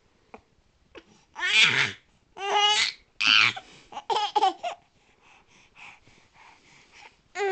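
A young child giggling: several loud, high-pitched bursts of laughter, then softer breathy sounds after about five seconds, with another giggle starting right at the end.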